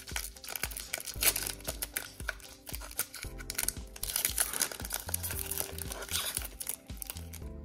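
Foil wrapper of a Pokémon Trading Card Game booster pack crinkling and tearing in rapid crackles as fingers peel it open, over background music. The pack is stiff and hard to tear.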